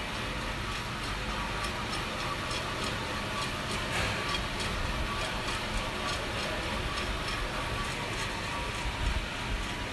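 Vina Roaster drum coffee roaster running with a steady mechanical rushing noise as the green beans tumble in the drum, with scattered light ticks throughout.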